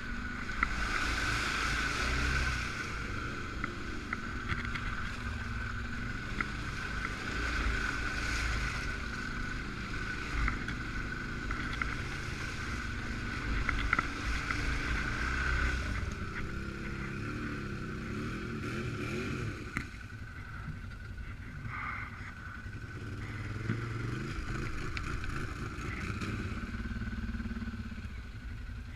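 Suzuki KingQuad 750 AXi ATV's single-cylinder engine running as the quad is ridden off-road, its pitch rising and falling with the throttle, over a constant low rumble and a steady high whine that fades in the second half.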